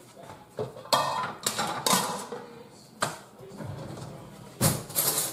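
Kitchen clatter: a string of sharp knocks and clinks of dishes and utensils being handled, loudest about a second in and near the end.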